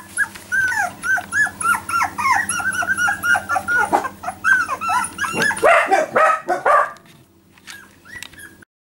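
Four-week-old Jack Russell Terrier puppies whining and yipping, a quick run of short high-pitched cries that die down about seven seconds in.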